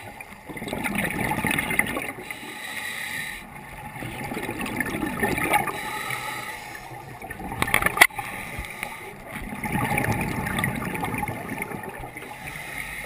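Scuba regulator breathing heard underwater through the camera's housing: bubbly, gurgling swells of exhaled air about every four to five seconds, with a steadier hiss between breaths. A single sharp click about eight seconds in.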